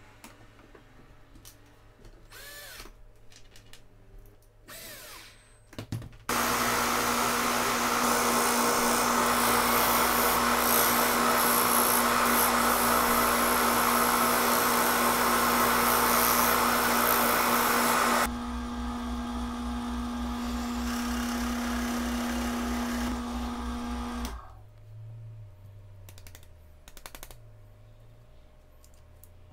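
Plywood discs being turned round with a chisel on an electric motor's spinning shaft used as a lathe. The motor starts suddenly about six seconds in with a loud scraping cut over a steady hum. The cutting stops about twelve seconds later and the motor runs on alone with its hum until it cuts off about six seconds after that.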